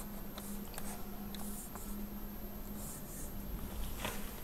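Faint scattered clicks from a computer mouse and keyboard over a low steady hum, with a few more clicks near the end.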